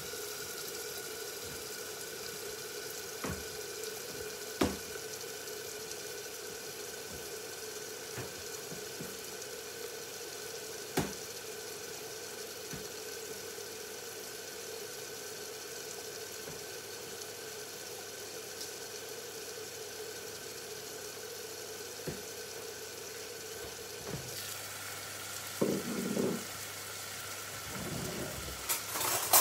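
Food cooking in a pot on the stove: a steady sizzling hiss with a steady hum under it and a few faint knocks. About 24 s in the hum drops out, and a few sharper clatters come near the end.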